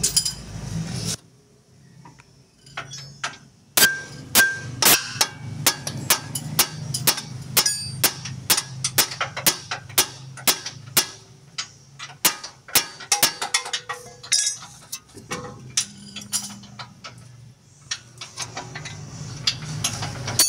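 Hammer blows on metal: a quick, irregular run of sharp clanging strikes, about three a second, starting about four seconds in and thinning out after about fifteen seconds, some of them ringing.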